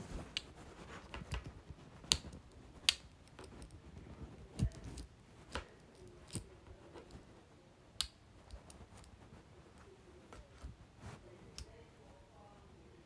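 Irregular sharp clicks and light taps over faint room noise, the two loudest about two and three seconds in.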